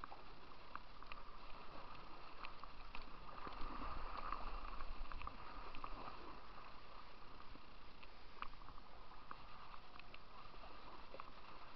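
Kayak paddle strokes in river water: splashing and dripping from the blades, with scattered small sharp clicks and knocks, busiest a few seconds in.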